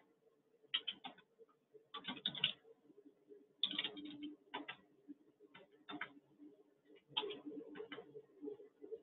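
Computer keyboard keystrokes and mouse clicks, faint, coming in short irregular clusters over a low steady hum.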